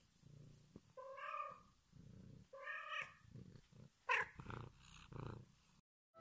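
A domestic cat purring, with two drawn-out meows about a second and a half apart and a shorter, sharper call a little after four seconds in.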